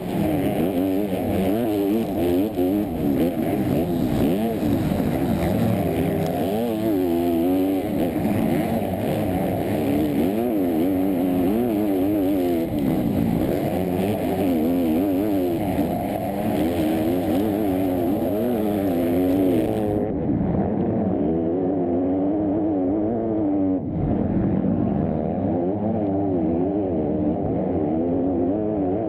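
Four-stroke motocross bike engine heard from an onboard camera while racing, its pitch rising and falling over and over as the throttle opens and closes. From about twenty seconds in it sounds duller, with the top end cut off.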